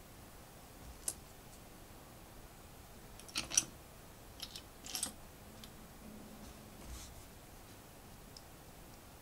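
LEGO plastic pieces clicking as they are handled and pressed together: scattered sharp clicks, the loudest a quick pair about three and a half seconds in.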